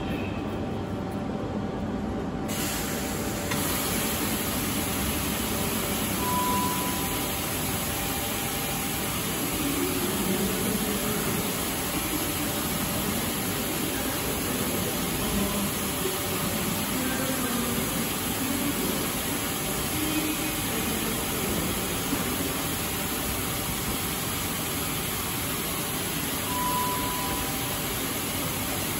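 Steady hiss and hum from a stationary Class 444 Siemens Desiro electric multiple unit standing at the platform, its onboard equipment running. The high hiss comes in abruptly about two seconds in. A brief high beep sounds about six seconds in and again near the end.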